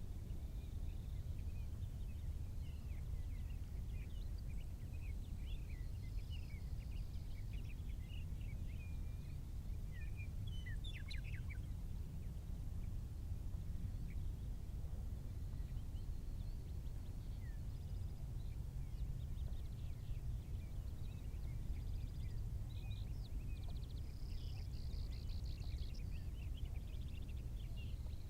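Birds chirping and calling over a steady low rumble, with a quick flurry of calls about eleven seconds in and fast trills near the end.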